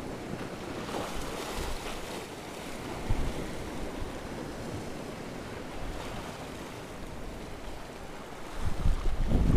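Small surf waves washing and breaking against a concrete breakwater, a steady wash. Near the end, a louder low rumble of wind on the microphone comes in.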